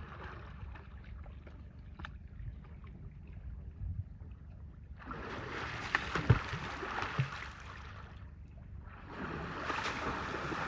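Pool water splashing and sloshing as Asian elephants play in it, in two spells of a few seconds each, with a couple of sharp knocks in the first; a low wind rumble lies underneath.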